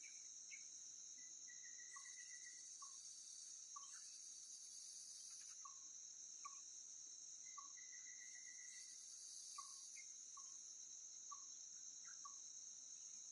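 Insect chorus of crickets: a steady high-pitched shrill, with a higher layer that swells in and drops out every couple of seconds. Faint short chirps repeat about twice a second, with two brief trills mixed in.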